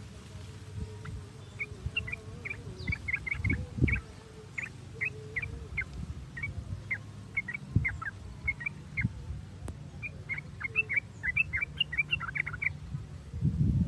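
Yellow-vented bulbul (trucuk) calling in quick runs of short, sharp chattering notes, over a steady low rumble with a couple of dull thumps about four seconds in.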